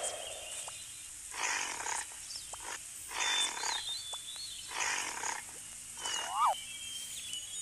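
A large animal's calls: three harsh bursts, each about half a second long and about a second and a half apart. Thin bird chirps run behind, and a short warbling call comes near the end.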